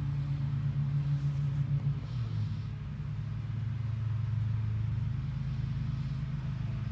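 An engine running steadily with a low drone, dropping a little in pitch about two seconds in.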